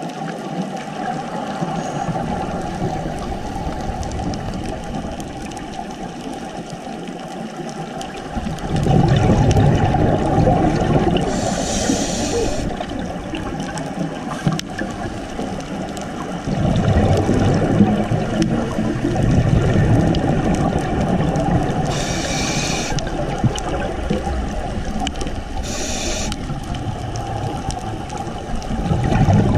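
Underwater sound heard through a GoPro housing: a scuba diver's exhaled bubbles rumbling in surges a few seconds long, about three times, with short hisses between them.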